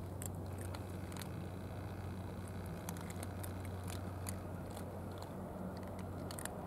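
A cat crunching dry kibble: irregular crisp clicks of chewing in clusters, over a steady low hum.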